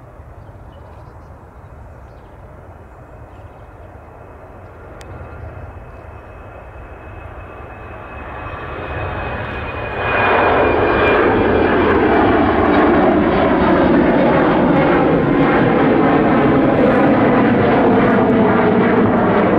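Finnair Embraer E190 jet taking off on its two underwing turbofan engines. The engine noise swells slowly during the takeoff roll, then jumps much louder about halfway through as the jet climbs away, with a thin whine that slowly falls in pitch.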